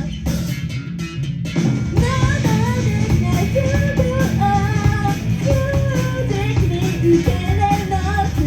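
Live rock band playing a song with drum kit, bass and electric guitar. A singer comes in about two seconds in and carries the melody.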